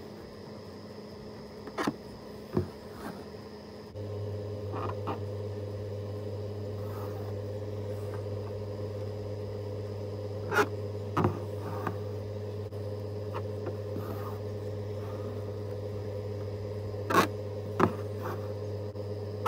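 Sharp ticks of an embroidery needle piercing fabric stretched taut in a hoop, coming in pairs a little over half a second apart, three times. They sit over a steady low hum that gets louder about four seconds in.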